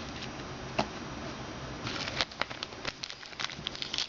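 Trading cards being handled and flipped through by hand: a single sharp tap a little under a second in, then quick rustling and clicking of the cards from about two seconds on.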